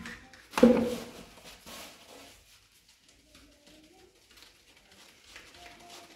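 A single sharp clatter with a brief metallic ring about half a second in, as a plastic bowl and a round flour sieve knock against a large metal tray. It is followed by soft, faint rustling as flour is worked through the sieve.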